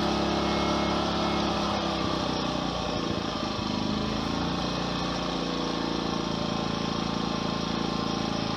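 Amico AIG2000 four-stroke inverter generator running with no load; about two seconds in it is switched to eco throttle mode, and its engine slows and settles to a lower, slightly quieter steady hum.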